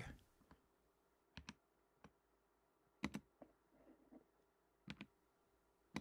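A few sharp computer-keyboard clicks, some single and some in quick pairs, spaced about a second apart over near silence, as a line of text is pasted into a file.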